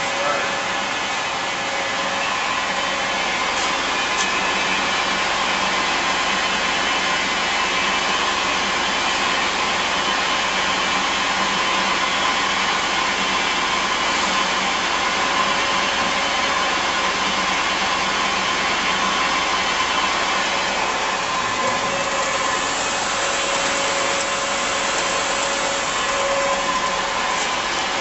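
Bridgeport Romi EZ-Path 16x42 CNC lathe running with its spindle turning: a steady machine noise with a couple of faint held tones through it.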